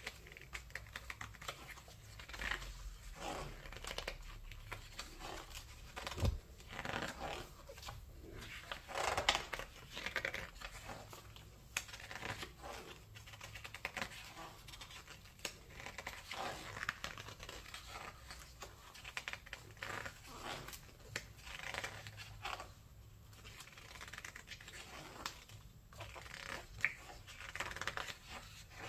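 Pages of a large hardback art book being turned by hand, several times: a papery swish and rustle as each leaf lifts and falls, with a few soft taps as pages settle.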